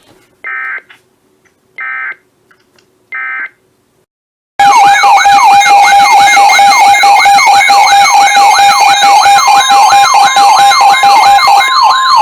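Three short bursts of buzzy EAS/SAME digital data tones, about a second and a half apart, mark the start of a new weather alert. After a pause, a weather alert radio's siren alarm sounds loudly: a wail that rises and falls about three times a second over a steady tone. About ten seconds in, the steady 1050 Hz NOAA Weather Radio warning tone joins it.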